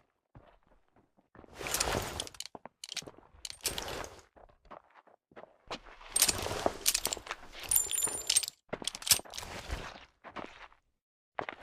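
Smith & Wesson Model 13 revolver being handled: scattered metallic clicks and scrapes in short clusters, busiest in the second half, with a brief high metallic ring partway through.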